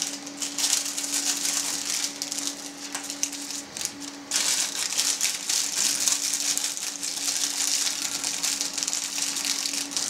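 A clear plastic bag of sugar cake decorations being handled, crinkling and rustling, with a short pause about four seconds in. A steady low hum runs underneath.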